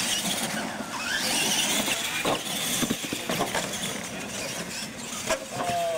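Two electric radio-controlled monster trucks racing flat-out on a dirt track: motors and gears whining up and down over the rough noise of tyres on dirt, with a falling whine near the end.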